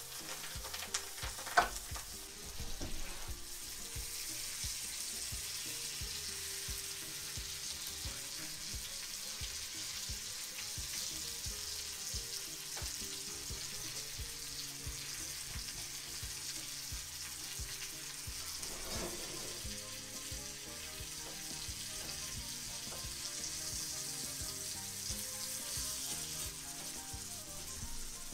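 Pike perch fillets sizzling steadily as they fry in a pan, with a sharp knock about one and a half seconds in. A metal spatula scrapes the pan now and then as the fillets are turned.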